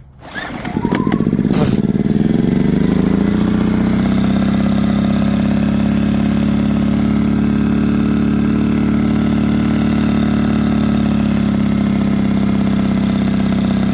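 Yamaha generator's small engine starting and catching almost at once, its pitch climbing over about two seconds, then settling into a steady run. With the stuck carburetor float needle cleaned, it now runs on its own fuel instead of only on carb spray.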